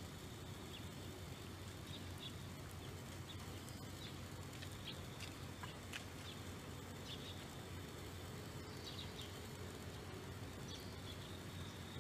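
Faint outdoor ambience: a steady low hum with short, high chirps scattered irregularly throughout.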